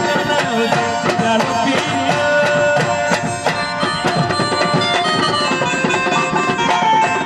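Instrumental music: a harmonium playing a melody over a fast hand-drum rhythm, with no singing.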